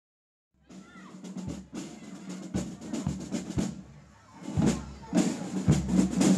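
A band playing outdoors, starting about half a second in: a bass drum beats about once a second with other drum hits, over brass that includes a sousaphone. It grows louder toward the end.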